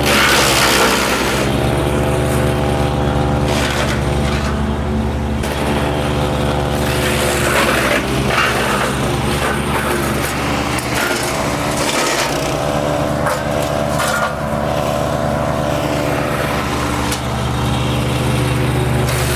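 MechMaxx P4206 wood chipper's gas engine running steadily while branches are fed through. Its pitch sags and recovers several times as the engine takes the load, with the grinding and crackle of wood being chipped.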